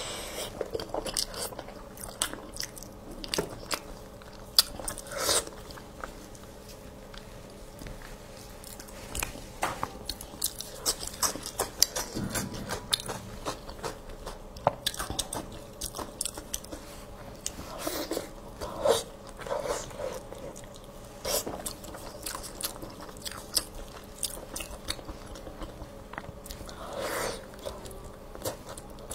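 Close-miked eating of braised meat on the bone: wet biting, tearing and chewing, with many irregular sharp smacks and clicks. A few of them are louder.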